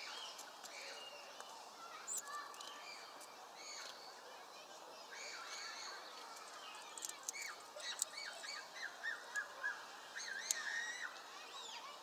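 Small songbirds chirping and calling, many short overlapping calls, growing busier and louder in the second half.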